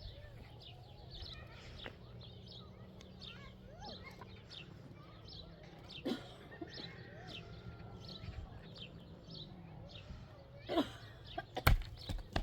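Birds chirping in short, high, rapidly repeated calls, with a few sharp knocks near the end.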